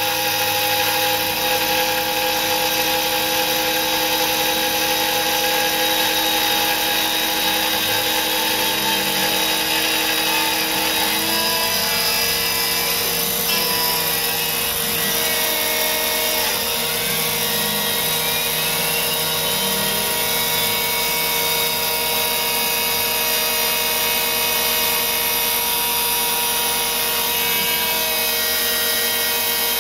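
CNC gantry milling machine's spindle and end mill cutting aluminium: a steady, loud machining whine made of several held tones. About halfway through, a few tones glide up and down as the head moves around the part.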